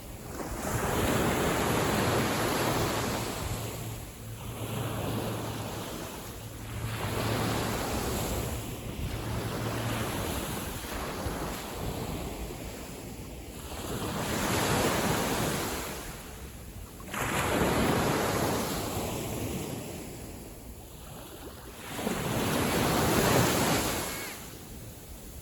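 Small sea waves washing in and drawing back, the rush swelling and fading every few seconds.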